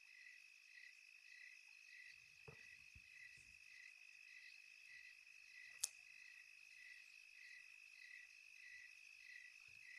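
Near silence: a faint steady high whine with a soft pulse repeating about twice a second, a few faint low thuds, and one sharp click about six seconds in.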